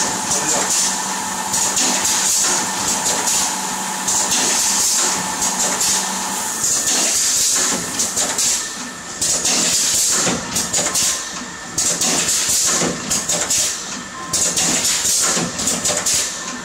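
GGS-110A plastic ampoule filling and sealing machine running, with repeated bursts of air hiss from its pneumatic cylinders over clicks and knocks from the mechanism. A steady hum under it stops about six and a half seconds in.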